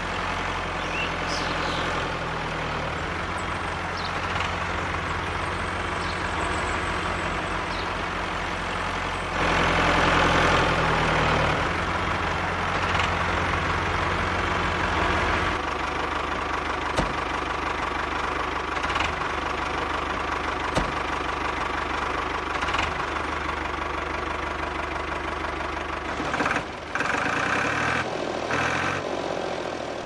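Engine running steadily with a deep, even thrum; about halfway through the deep part drops away, leaving a lighter mechanical whirr with a few sharp clicks.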